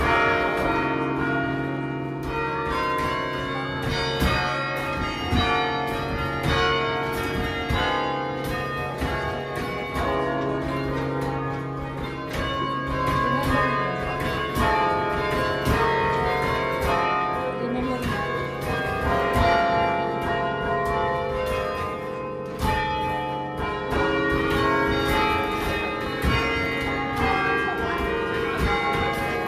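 The Cornell Chimes, a set of tower bells played from a console of wooden hand levers and foot pedals, ringing out a quick melody. The bells are struck note after note, and each tone rings on and overlaps the next.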